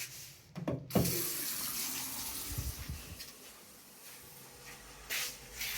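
Hot-water tap opened about a second in, water running from the faucet in a steady hiss that eases lower after a couple of seconds. A few short knocks near the end.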